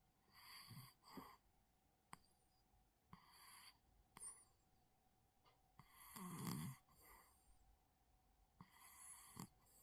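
A cat snoring softly, four snoring breaths about three seconds apart. The one about six seconds in is the loudest and deepest.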